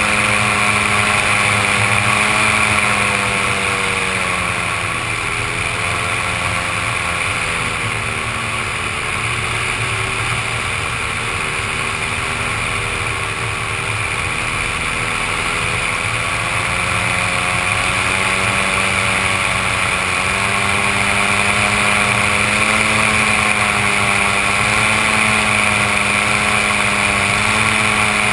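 Powered paraglider trike's engine and propeller running steadily in flight. The engine note sags a little about four seconds in and climbs again about two-thirds of the way through as the throttle changes during the landing approach.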